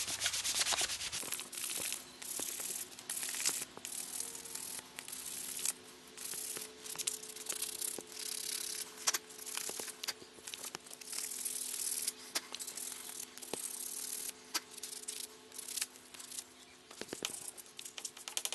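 Fine P120 sandpaper rubbed by hand along a wooden spoon, a scratchy swish in short, irregular strokes with brief pauses between them.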